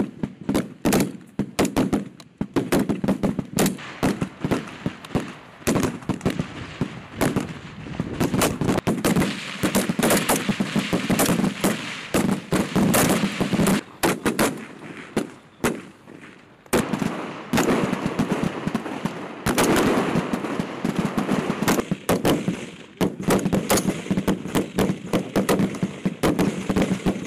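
Rifle fire from many M4-style 5.56 mm carbines along a range firing line: sharp, overlapping shots, several a second, with a couple of brief lulls past the middle.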